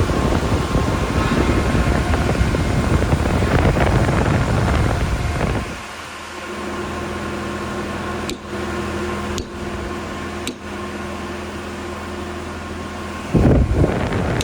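Rooftop AC condenser fans of a Tata bus running, with wind on the microphone for the first half. Then comes a steady hum with a few brief dropouts, and a gust of wind near the end. Only two of the fans are running properly and one is running slowly; the four faulty fans are letting the AC head pressure rise.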